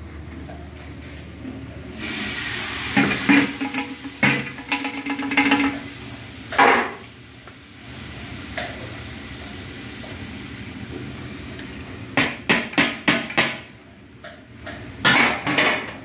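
Metal ladle knocking and scraping against a large aluminium cooking pot of rice, in scattered strikes with a quick run of taps about three-quarters of the way through.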